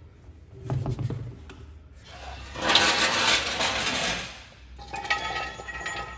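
A car wheel being lifted off its hub and set down, with a knock about a second in and a longer scraping rustle in the middle. Near the end, metal clinks with a short ring as a steel jack stand is moved into place.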